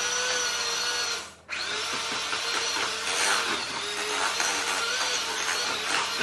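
Electric hand mixer running, its beaters mixing flour into cookie dough. The motor's hum wavers a little in pitch, cuts out briefly about a second in, then starts again and runs on.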